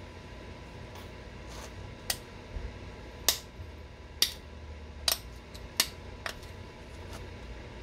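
Sharp clicks of flakes snapping off a stone point under pressure flaking. About seven come at uneven intervals, the loudest in the middle of the run.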